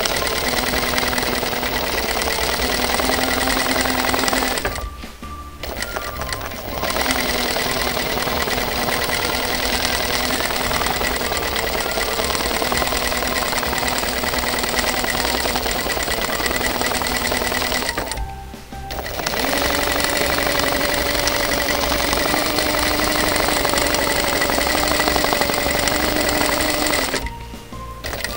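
Sewing machine running steadily as it stitches free-motion quilting through a layered quilt block. It stops briefly three times: about five seconds in, around eighteen seconds, and near the end.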